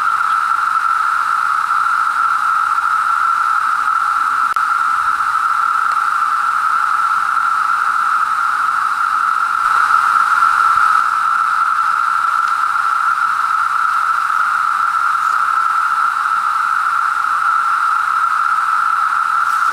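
Chorus of 17-year periodical cicadas (Magicicada, Brood II), many males singing at once in a loud, steady, unbroken drone. It swells a little about ten seconds in.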